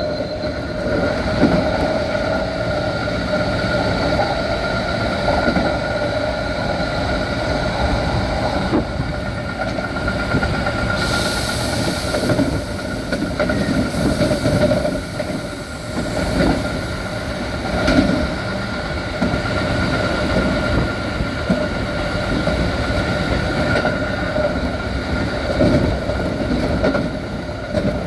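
Onboard running sound of a Keikyu 1500-series electric train with chopper control. A steady chopper whine sits over wheel-on-rail rumble and occasional rail-joint clicks as the train speeds up to about 80 km/h and then runs on. A brief hiss comes about eleven seconds in.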